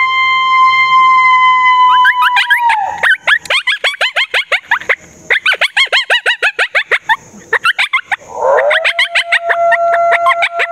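Recorded coyote howls and yips played loudly through a FoxPro electronic game caller: a long steady howl that drops off about three seconds in, a rapid run of yips, then a second, lower howl starting near the end.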